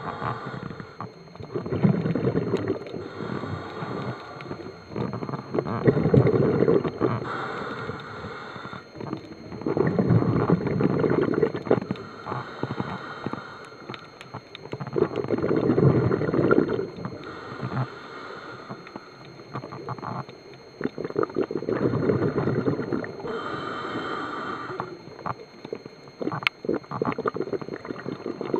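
Scuba diver breathing through a regulator, recorded underwater: every four to five seconds a rumbling burst of exhaled bubbles, each followed by the shorter hiss of an inhalation.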